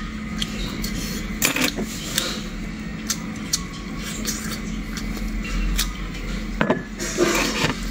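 Scattered sharp clicks and clinks of a knife and a plate as pieces of mutton sausage are cut and eaten, with a short clatter near the end, over a steady background hum.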